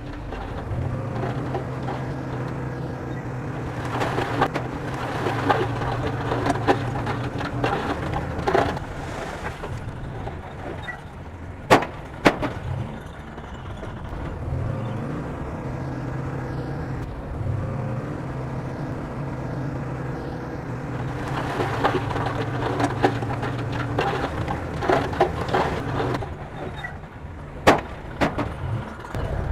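Bulldozer's diesel engine running under load, its hum rising and falling as it works, with a few sharp knocks: two close together near the middle and one near the end.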